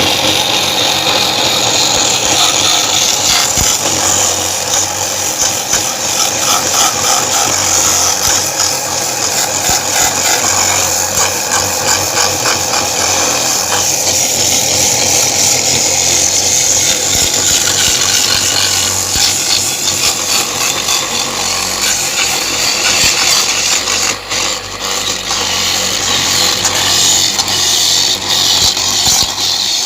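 Electric coconut grater (mesin kuhur) running steadily, its motor humming while coconut flesh is rasped against the spinning grater.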